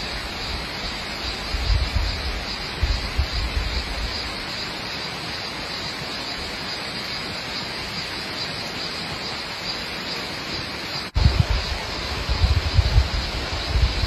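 Steady rushing outdoor noise, with wind buffeting the microphone in low gusts over the first few seconds. The sound breaks off abruptly about eleven seconds in, then resumes with more wind buffeting.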